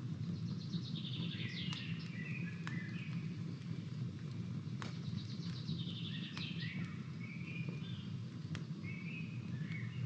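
Small wood campfire crackling, with several sharp pops spread through, over a steady low background noise. A songbird sings a twittering phrase twice, a few seconds apart, and a shorter one near the end.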